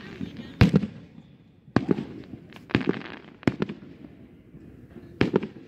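Aerial fireworks bursting, about five sharp bangs at irregular intervals of roughly a second, each with a short tail.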